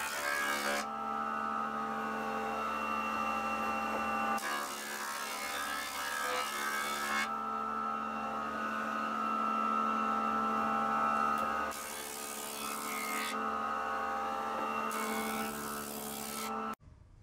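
A woodworking jointer-planer runs with a steady hum. Pine board is fed over the cutterhead four times, each pass a stretch of loud hissing cutting noise.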